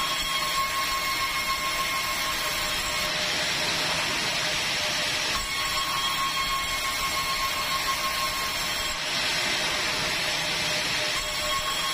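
Sawmill band saw running steadily while its blade rips through a wooden plank. A high whine rides on the steady noise, fading out and coming back about every three seconds.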